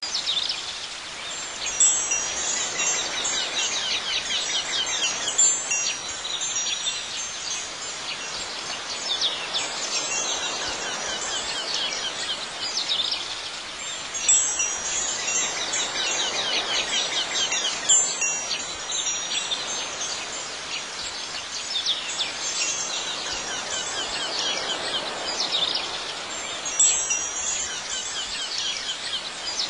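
Chimes ringing in a continuous jangle of high, overlapping tones, swelling every few seconds.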